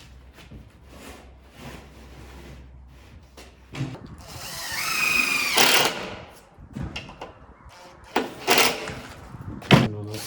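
Cordless drill driving screws into timber: a whine that climbs in pitch and holds for about two seconds, starting about four seconds in, then two shorter bursts near the end.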